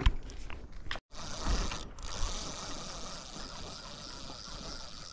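Spinning reel being cranked, a steady mechanical whirring, after a sharp click at the start.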